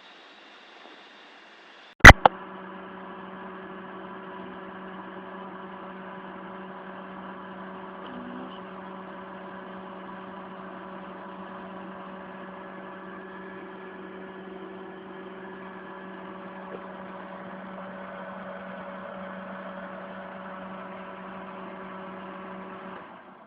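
A sharp click about two seconds in, then an egg incubator's small electric fan motor humming steadily with a whine, until it cuts off shortly before the end.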